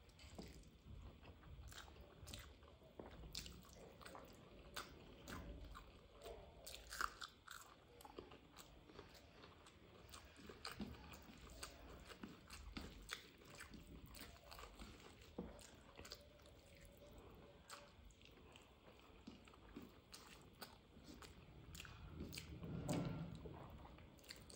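Close-up, quiet chewing and wet mouth sounds of a person eating rice and curry by hand: many short soft clicks and smacks, with a louder, lower sound a little before the end.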